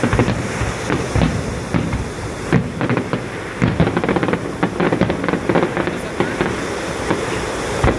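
Fireworks display: aerial shells bursting in a rapid, irregular series of bangs and pops, with no pause between them.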